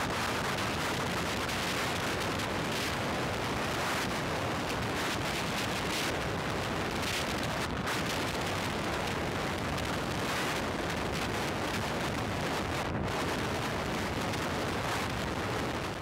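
Steady rush of wind buffeting an action camera's microphone on a Royal Enfield Thunderbird 500 motorcycle at highway speed, covering any engine note.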